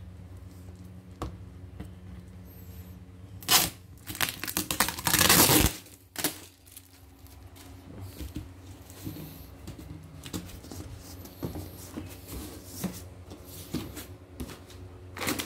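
Cardboard shipping box being torn open: packing tape ripped off in a short tear about three and a half seconds in, then a longer tear lasting over a second, with crinkling of cardboard and plastic wrap around them. A faint steady hum runs underneath.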